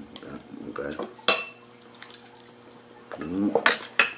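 Eating utensils clinking against ceramic tableware: one sharp ringing clink about a second in, and two more near the end.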